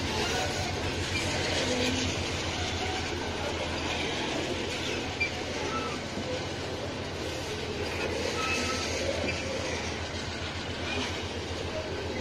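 Freight train of covered hopper wagons rolling steadily past close by: a continuous rumble of steel wheels on the rails, with a rhythmic clickety-clack as the trucks cross the rail joints.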